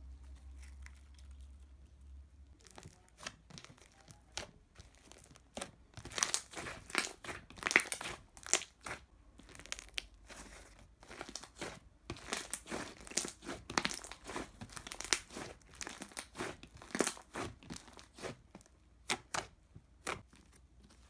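Thick jelly slime with sprinkles and glitter being squished and stretched by hand, making irregular sticky pops, clicks and crackles. They start a few seconds in and come thickest through the middle.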